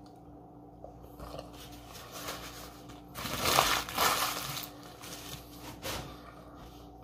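A foil-lined paper sandwich wrapper being crumpled up in the hands: light rustling, then a loud burst of crinkling about three seconds in that lasts over a second, and a smaller crinkle near the end.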